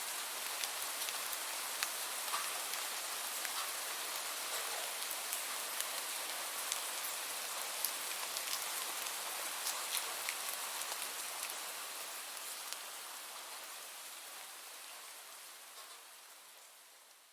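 Steady rain falling, a dense hiss with many individual drops ticking sharply on a surface, fading gradually over the last few seconds.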